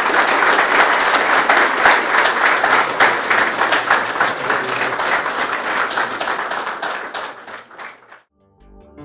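Audience applauding, a dense steady clatter of many hands that thins out towards the end and cuts off about eight seconds in. Music with sustained pitched notes starts just before the end.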